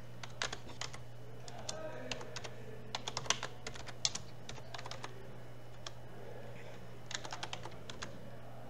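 Typing on a computer keyboard: short runs of key clicks with pauses between, ending in a quick run of several keystrokes, over a steady low hum.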